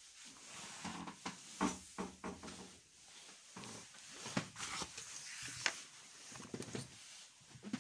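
Footsteps and light knocks and thumps inside a narrowboat cabin, coming irregularly every half second or so.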